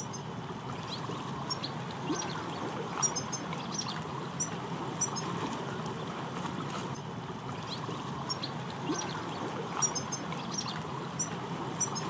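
A flock of European goldfinches twittering, with short high chirps scattered throughout over a steady rushing background noise.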